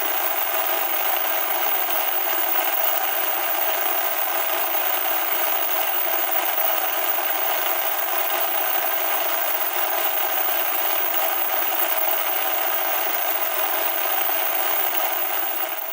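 Loud, steady static noise: a harsh, even hiss with no low rumble, unchanging throughout and starting to cut off right at the end.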